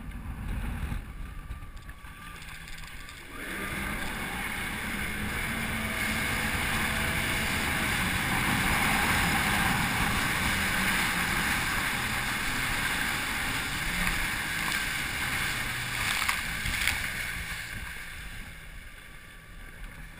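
Jet ski running across choppy water: engine and rushing water with wind on the microphone, picking up sharply about three seconds in, holding steady, then easing off near the end.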